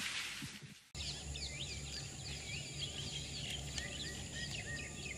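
A fading whoosh ends about a second in, then an abrupt cut to a chorus of many birds chirping and calling over a steady low rumble.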